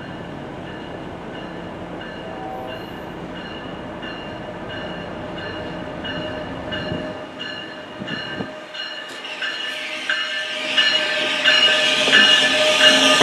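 NJ Transit ALP-46 electric locomotive arriving with its train, its rolling rumble swelling loud over the last few seconds as it reaches the platform. A regular ding repeats a few times a second throughout.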